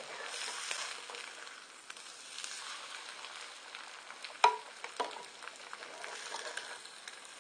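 Eggs sizzling as they fry in a cast-iron skillet, with a spatula scraping and tapping the pan as they are turned. A sharp knock about four and a half seconds in is the loudest sound.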